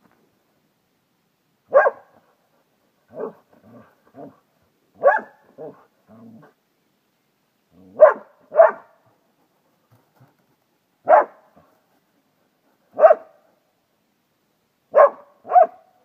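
Large black dog barking repeatedly: single barks and quick pairs every two or three seconds, with quieter, lower woofs between them in the first half. It is a bark indication, the dog barking at a person it has found hidden in a shelter, as in search-and-rescue training.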